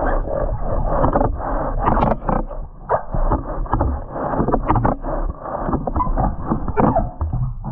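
Water sloshing and rumbling around the boots soaking in the tub, heard muffled through a submerged camera, with frequent small knocks and clicks throughout.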